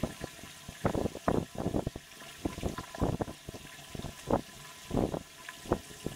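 Short, irregular splashes of water, about two a second and uneven in strength.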